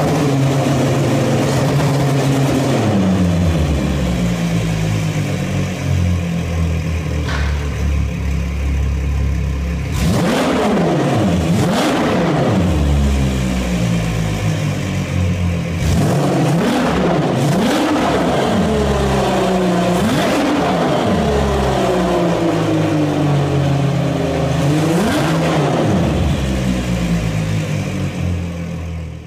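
Twin Mercury Verado 300 supercharged inline-six outboards running out of the water, idling between revs. About half a dozen times the throttle is blipped, and the pitch rises sharply and falls back each time, the blips coming close together in the middle stretch.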